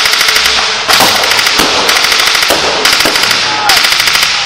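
Automatic gunfire firing blank rounds in rapid, loud bursts with short breaks between them.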